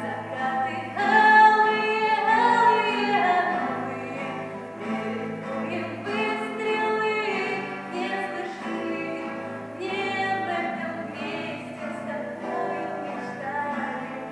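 Music: young voices singing a Russian song over acoustic guitar accompaniment.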